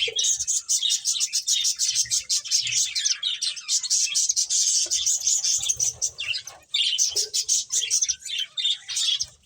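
Pet finches chirping: a fast, continuous stream of short, high, overlapping calls.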